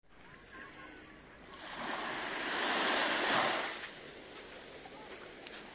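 A small wave washing up onto a sandy beach: the rush of foamy water swells about a second and a half in, peaks, and dies away a second or so later.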